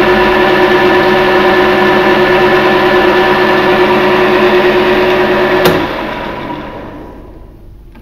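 Boxford metal lathe running under power with its chuck spinning, a steady machine drone with several steady tones from the motor and gearing. About five and a half seconds in there is a sharp click, and the lathe winds down and fades away as it coasts to a stop.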